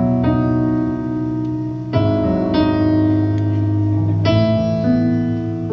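Stage keyboard with a piano sound playing slow, sustained chords, changing to a new chord about every two seconds.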